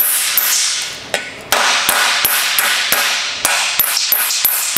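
Hammer blows on a thin sheet-steel panel laid over a wooden block: a tuck in the edge is being hammered down to shrink the metal and form a spine. Sharp, bright strikes come about two to three a second, with a short pause about a second in.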